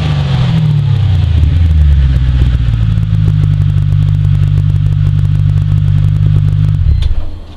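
Mercedes M113 5.0 V8 exhaust in a Chrysler Crossfire, settling down from a rev to a steady idle, then shut off about seven seconds in.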